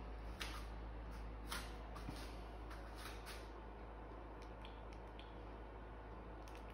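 Faint handling noise, soft clicks and rustles, from a phone camera being moved, mostly in the first three seconds, over a steady low hum.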